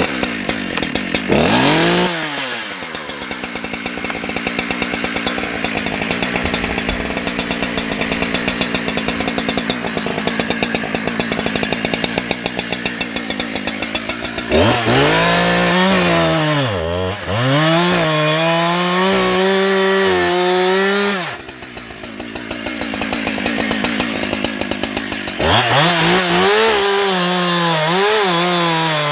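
Husqvarna 365 two-stroke chainsaw with a new chain, run at full throttle in two long cuts. The engine note is dense and loaded while it cuts, and between and after the cuts it revs high and clean, its pitch dipping and climbing as the throttle is blipped.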